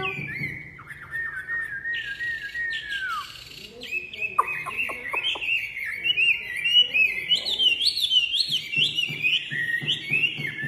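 Wambi songbird singing in a run of clear, high whistled notes, each with a quick rising or falling slide. There is a short pause a little after three seconds, then a faster, denser string of notes.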